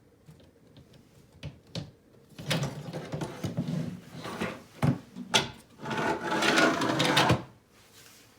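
Wooden cabinet door on freshly fitted hinges being swung and worked, a few light clicks and then a run of scraping and knocks, loudest in a long scrape near the end. It makes much more noise than expected, a sign that the door is not mounted properly.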